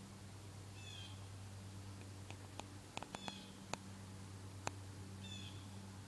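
Faint steady low hum of wasps buzzing on goldenrod, with a short high chirping call twice, about a second in and near the end, and a few sharp clicks in the middle.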